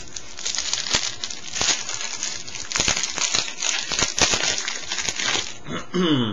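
A trading-card pack wrapper being torn open and crinkled in the hands: a dense, crackly rustle full of small clicks for about five seconds. Near the end there is a short voiced sound that falls in pitch.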